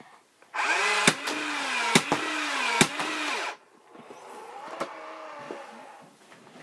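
Battery-powered Nerf Speed Swarm dart blaster revving its motor and firing three darts. The whir dips in pitch at each of three sharp clicks about a second apart, then a quieter whir follows.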